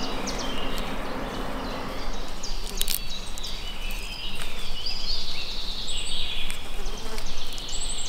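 Hand tool working a small piece of wood: a gritty scraping that swells and fades in uneven strokes, with a few sharp clicks.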